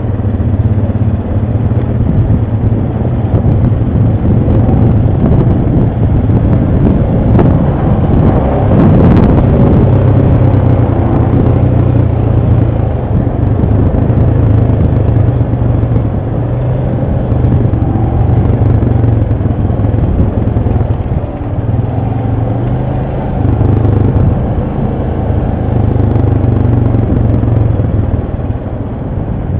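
ATV engine running as the quad is ridden, a loud steady low drone that eases off briefly a few times. A sharp knock sounds about nine seconds in.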